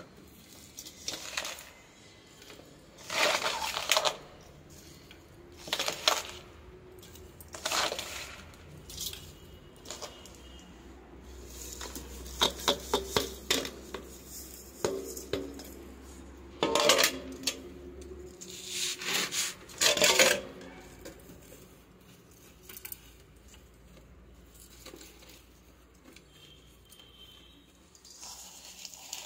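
Handfuls of potting soil scooped out of a steel bowl and dropped into a plant pot: short bursts of gritty scraping against the metal bowl and soil pattering into the pot, one every couple of seconds, with a run of quick clicks from grit and pebbles near the middle.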